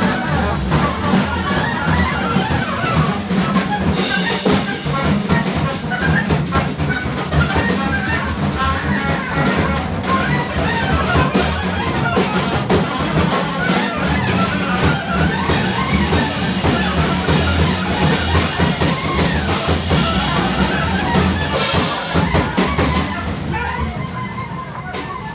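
Free-jazz trio playing live: a busy drum kit with cymbals, a double bass, and a horn weaving a wandering line over them. The cymbals and the overall level ease off slightly near the end.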